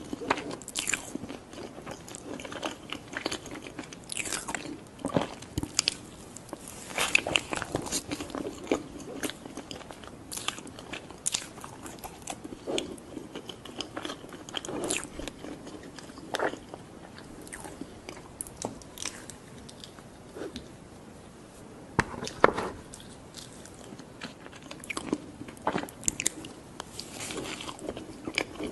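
Close-miked ASMR eating: a person biting and chewing novelty food, with irregular sharp clicks and crackles of bites and mouth sounds.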